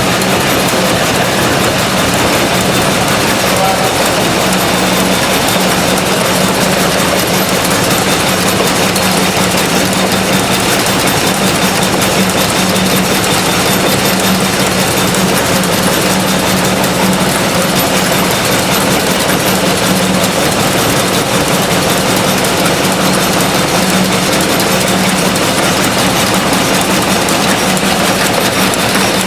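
Antique Williamsport hit-and-miss gas engine running at a steady pace.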